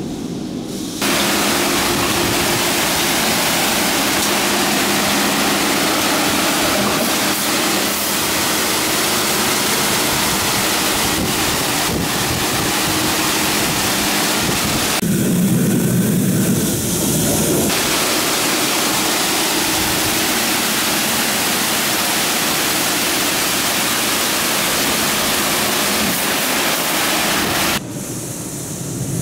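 D&S i5000 touch-free car wash arch blasting high-pressure water jets onto a car, a loud steady hiss that starts about a second in and cuts off near the end. Midway it briefly turns duller, with a low hum under it.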